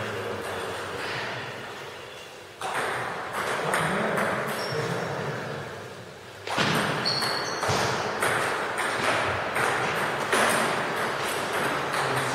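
Celluloid-type table tennis ball clicking off the table and the players' bats in a rally: a run of sharp, quick ticks over the steady background noise of a sports hall.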